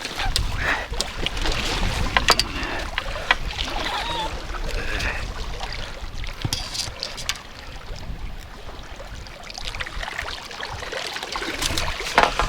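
Wind buffeting the microphone, with water splashing and lapping and scattered sharp clicks and knocks of fishing tackle being handled.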